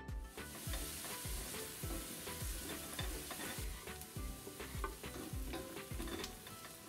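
Chopped red onion sizzling as it fries in butter in a stainless steel pot, stirred with a wooden spoon; the sizzle is strongest for the first three seconds or so, then eases. Background music with a steady beat plays underneath.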